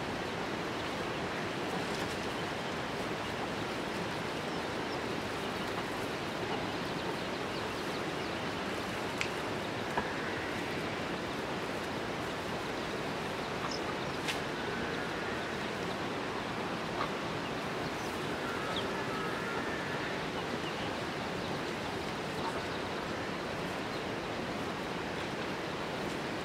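Steady rushing outdoor noise with a few light clicks of the wooden poles being handled, and a couple of faint bird chirps about halfway through.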